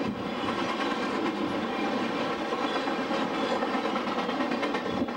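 Intermodal freight train of trailers on flatcars rolling steadily past close by: a continuous rumble and rattle of steel wheels on rail, with a faint clickety-clack.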